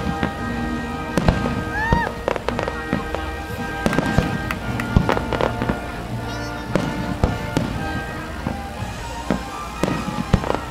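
Aerial fireworks shells bursting in quick succession, many sharp bangs and crackles, over music.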